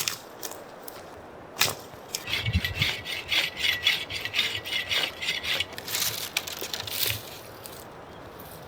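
Hand saw cutting through wood in quick back-and-forth strokes, after a sharp knock on the wood.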